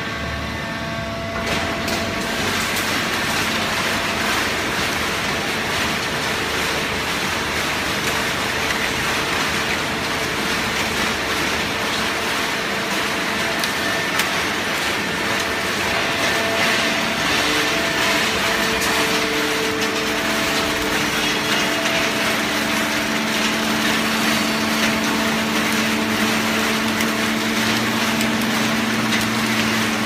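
Fully automatic horizontal hydraulic baling press running: a steady mechanical din with a low hum. The din gets louder about a second and a half in, and the hum changes and grows stronger about two-thirds of the way through.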